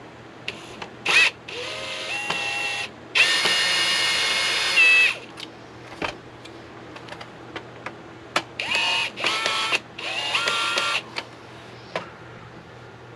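Power drill-driver backing out the case screws of a plastic modem, in about six short runs. Its motor whine steps up and down in pitch as the trigger is squeezed and eased, with small clicks between runs.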